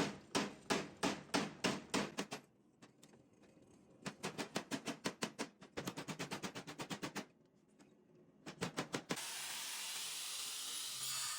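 Hand hammer forging a piece of Damascus steel on an anvil: a steady run of blows about three a second, a pause, then a quicker flurry of lighter blows and a few more strikes. About nine seconds in, the blows stop and a steady hiss takes over.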